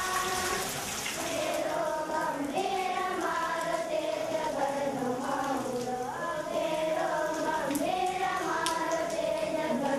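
High voices singing a melody, with the steady hiss of falling rain underneath.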